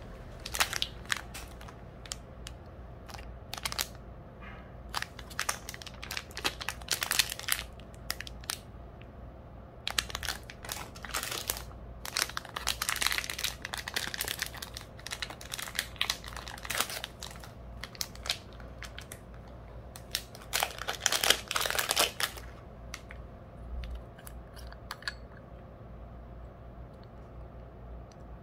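Small clear plastic zip bags of nail-art parts crinkling as they are handled, in irregular bursts that die down over the last few seconds.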